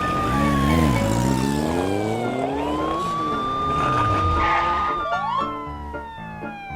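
Police siren wailing: a high tone holds, slides slowly down, then swoops quickly back up, twice over. A lower sound rises in pitch alongside it early on, and music notes come in near the end.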